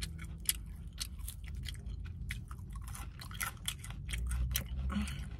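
Chewing and lip-smacking on a mouthful of fried chicken, heard as a quick, irregular run of small wet clicks.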